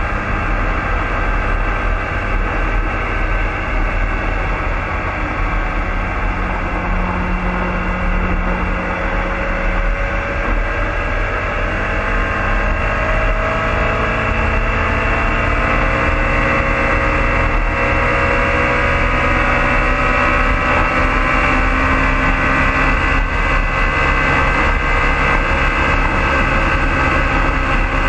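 BMW motorcycle engine under hard acceleration at high speed, heard from the rider's seat with wind rush. The engine note climbs slowly about a third of the way in, then holds high as the revs near the red line.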